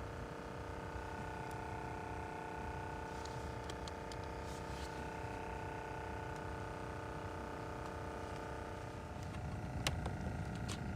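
A motor runs with a steady, even hum. The hum fades about nine seconds in, leaving a low rumble and a few sharp clicks.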